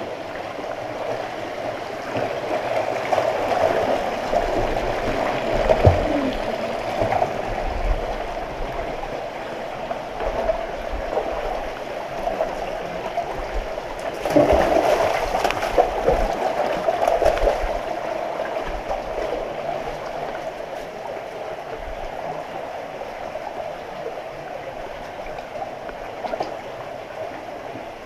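Shallow stream water gurgling over rock in a narrow stone gorge, with the sloshing splashes of wading steps through the water, louder about four to seven seconds in and again about fourteen to seventeen seconds in.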